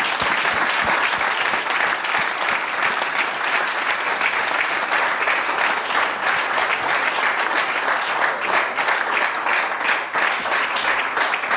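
Audience applauding: a dense, steady patter of many hands clapping, with single claps standing out a little more near the end as it begins to thin.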